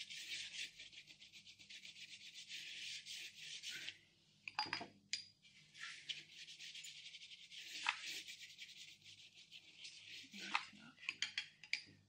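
Paintbrush scrubbed over a textured paper-and-thread collage, working in acrylic paint: fast, scratchy rubbing strokes in runs, with a lull and a few sharp taps about four to five seconds in, and a cluster of clicks near the end.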